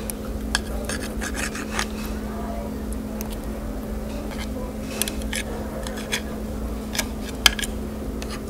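Steak knife sawing back and forth through a tough steak, with irregular scrapes and clicks of knife and fork on a ceramic plate and one sharp clack about seven and a half seconds in. A steady low hum runs underneath.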